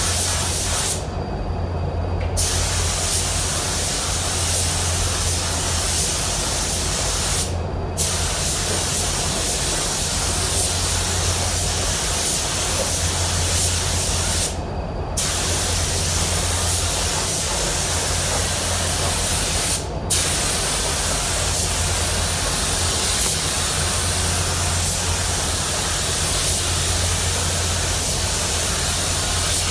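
Automotive paint spray gun hissing steadily as compressed air atomises solvent-based black paint onto a truck bedside, cut off briefly about four times as the trigger is let go between passes. A steady low hum runs underneath throughout.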